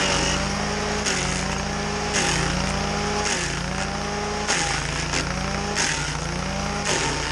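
Chainsaw running under load, its engine pitch dipping and climbing back about once a second as it works through the wood.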